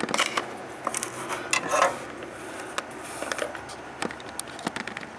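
Scattered small clicks, taps and scuffs from a circuit board being handled, with a new electrolytic capacitor's leads being fitted into their holes.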